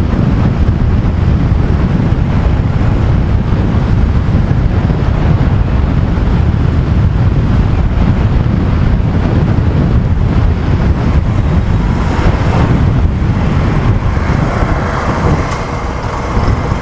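Wind rushing over the microphone of a motorcycle riding at about 60 km/h, with the Yamaha FZ-S's road and engine noise underneath. The rush eases slightly about fifteen seconds in as the bike slows for a junction.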